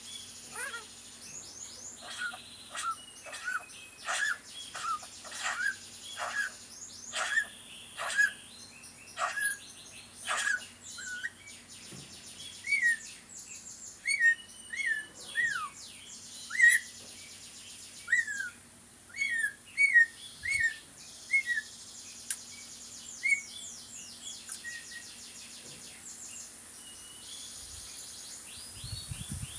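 Pet talking bird calling over and over: a string of short, sharp calls about once a second, then a run of short downward-sliding chirps, with quieter gaps. A faint steady hum runs underneath.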